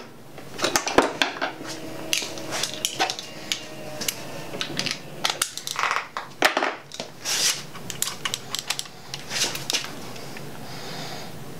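Irregular metallic clinks and clatter of hand tools and engine parts being handled on a bare engine block during bottom-end assembly, with a few short rustles.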